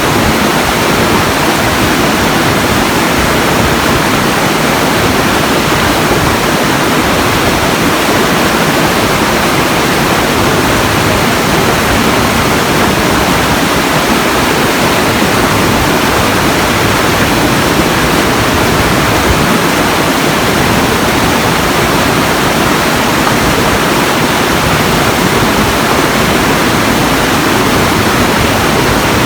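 Steady rushing water, a loud, even roar with no breaks or changes.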